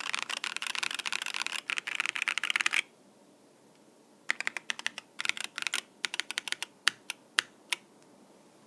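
Mechanical keyboard with stock Durock Lupine tactile switches on an aluminum plate and PBT keycaps, typed on fast. The typing stops about three seconds in, then comes back in short bursts and a few separate, louder single keystrokes before ending.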